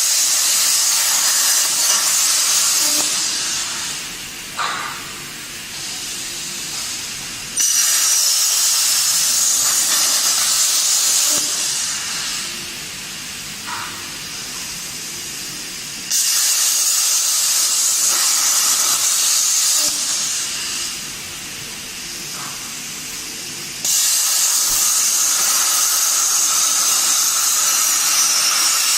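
Plasma cutting torch hissing loudly in stretches that start abruptly about every eight seconds. Each loud stretch lasts three or four seconds, then drops to a quieter air hiss.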